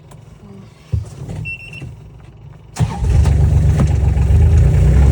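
A vehicle engine being started: a thump about a second in and a short beep, then a little under three seconds in the engine catches with a sudden jump in level and runs steadily and loud.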